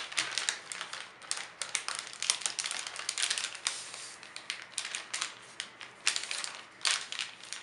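Metallic gift-wrap paper crinkling and crackling under the hands as it is folded and pressed flat: a dense, irregular run of small crackles.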